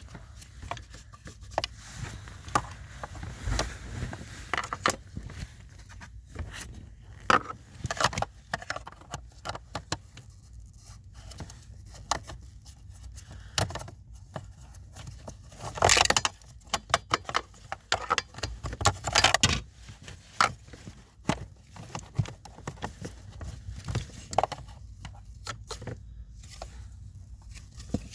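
Irregular clicks, knocks and scrapes of car parts being handled and fitted back in place by hand, with a louder cluster of knocks about halfway through and another a few seconds later.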